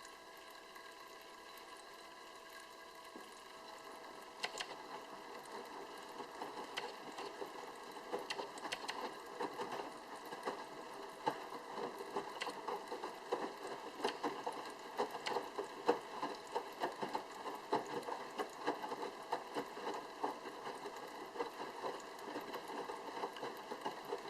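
Sharp drum washing machine in its wash cycle: the steady hum of the pump that circulates the water, joined about three seconds in by water sloshing and splashing as the drum turns the wet laundry back and forth.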